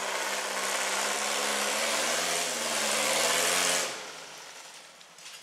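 Volkswagen engine of a rail buggy running hard under load, its pitch rising slightly, then dropping away sharply about four seconds in.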